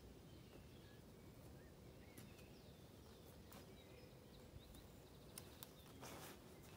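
Quiet forest ambience with faint, distant bird calls: short chirps and small pitch glides scattered throughout. A brief rustle comes near the end.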